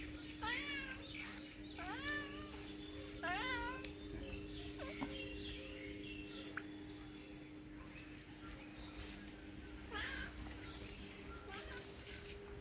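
Domestic cat meowing: three clear meows in the first four seconds, then a quieter, fainter call near the end, over a steady low hum.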